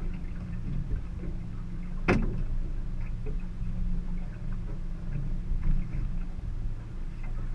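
Boat's outboard motor idling with a low, steady hum while a fishing reel gives scattered faint ticks as a hooked fish is fought and reeled in. One sharp knock comes about two seconds in.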